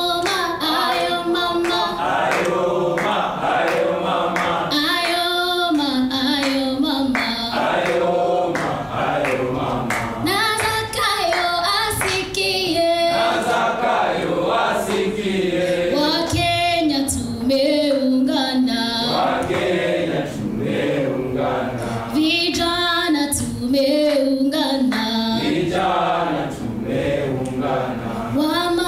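A song sung by a group of voices, choir-like and continuous.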